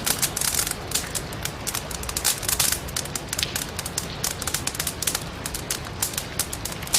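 Firewood burning in a fireplace, crackling with dense, irregular snaps and pops, over a steady hiss of rain.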